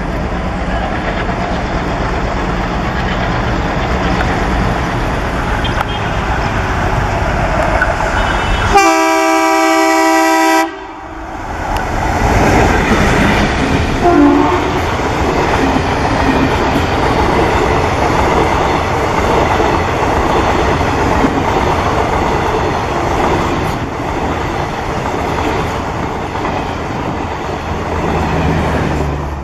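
ALCO WDM-3A diesel locomotive approaching with its engine running, then sounding its horn, a chord of several tones held for about two seconds, nine seconds in. After that the passenger coaches roll past with loud, steady wheel-on-rail noise.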